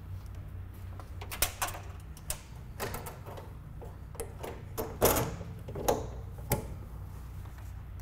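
Car-carrier toolbox door being shut and its freshly tightened three-point latch worked: a series of sharp metal clicks and clunks, the loudest about five seconds in.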